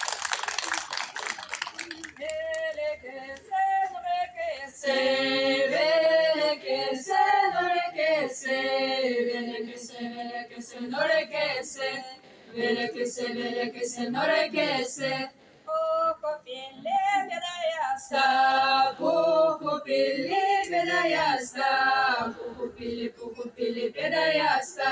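Seto leelo, unaccompanied folk singing: a woman lead singer sings the opening phrase alone, and a female choir joins in about five seconds in, singing phrase by phrase with short breaths between. A brief rush of noise comes before the singing.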